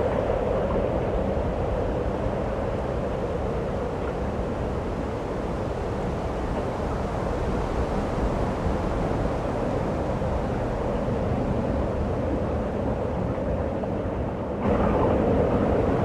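Storm wind of a snowstorm blowing as a steady rushing noise that abruptly turns louder near the end.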